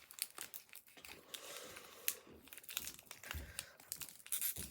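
Trading cards and foil card-pack wrappers being handled, with irregular crinkling and rustling and a soft thump or two near the end.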